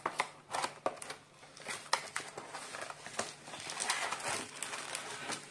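A cardboard kit box being opened by hand and plastic packets of diamond painting rhinestones crinkling as they are pulled out: irregular rustling and crinkling with many small clicks.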